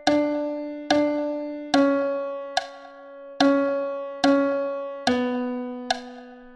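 Piano playing a slow melody in A major, an even note about every second. Each note is struck and fades away, each pitch sounding twice before stepping down to the next.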